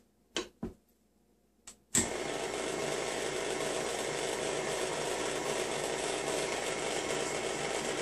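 A few light knocks as the stand mixer's tilt head is lowered and set, then about two seconds in the mixer's electric motor starts suddenly and runs steadily, its whisk blending flour and salt gently into cookie dough in the steel bowl.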